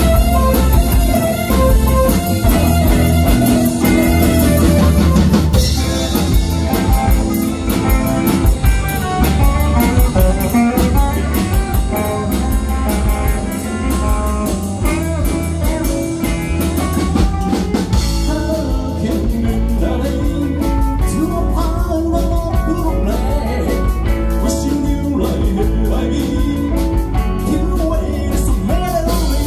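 Live rock and roll band playing: electric guitar and drum kit with a male singer.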